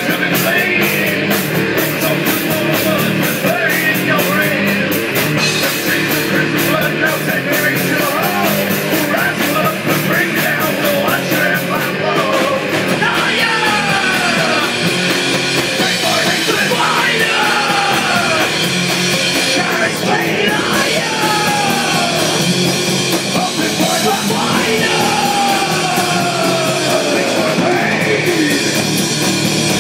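Live rock band playing at full volume: distorted electric guitars, bass and drum kit, with shouted vocals. Over the second half, high sliding notes come through on top.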